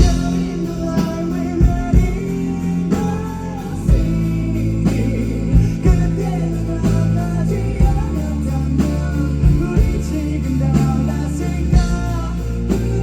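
Live rock band playing a song's instrumental intro. Drums, bass and electric guitar come in together at full level right at the start and carry on over a steady beat.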